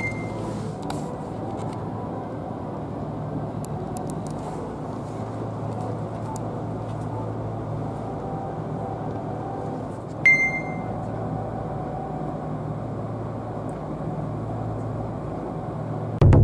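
Steady low hum inside a stationary express train car, the running noise of its air conditioning and onboard equipment. Two short high beeps sound, one at the start and one about ten seconds in. A loud low boom comes at the very end.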